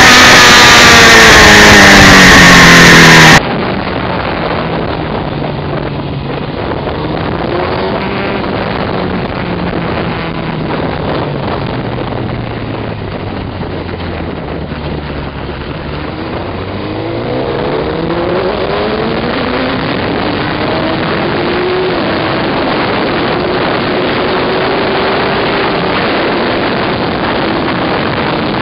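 2001 Suzuki GSX-R1000's inline-four engine heard from onboard while riding, with wind rush on the microphone. It runs loud at first. After a cut about three seconds in, its pitch falls slowly as the bike slows, then rises again about halfway through as it accelerates and holds speed.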